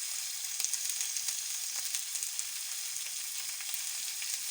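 Chicken strips and onions frying in oil in a pan, a steady sizzle with fine crackling.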